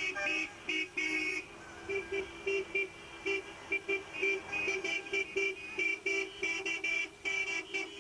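Car horns on a passing convoy of cars tooting in many short, irregular blasts, often several a second.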